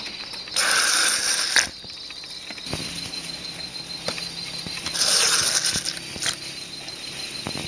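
Liquid agar nutrient medium squirted from a large plastic syringe into small plastic pots: two splashing squirts, each about a second long, the first about half a second in and the second about five seconds in, with a few light plastic knocks between them.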